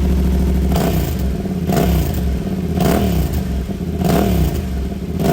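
Motorcycle engine running with repeated revs, the pitch dropping and climbing again about once a second over a steady low drone.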